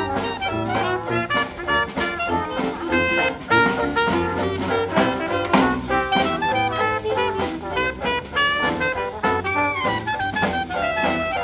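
Live Dixieland-style jazz band playing: clarinet, trumpet, trombone and tuba over banjo and drum, with the tuba carrying the bass line and a steady beat throughout.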